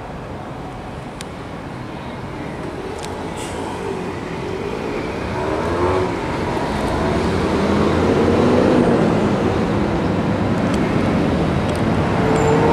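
Road traffic going by: a steady rumble of passing vehicles that grows louder through the second half, with engine and tyre tones sliding up and down in pitch as a vehicle approaches and passes.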